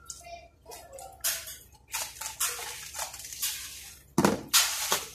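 Packaging rustling and crinkling in irregular bursts as a parcel is handled and opened, with the loudest crackle a little after four seconds in.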